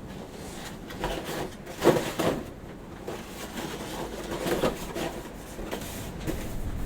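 Irregular knocks and scrapes of objects being handled, loudest about two seconds in.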